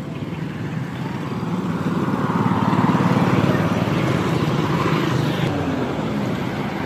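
Street traffic, mostly motorcycles passing along the road. The engine noise swells to its loudest about three seconds in, then eases off a little.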